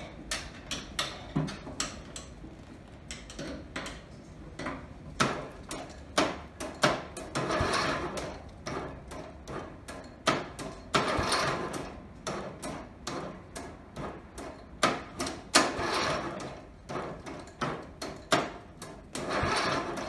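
Murray lawn tractor's starter circuit clicking again and again as the key is turned, with four noisy bursts of about a second each, the engine not cranking over or catching. The owner blames a bad starter, having already replaced the starter solenoid three times.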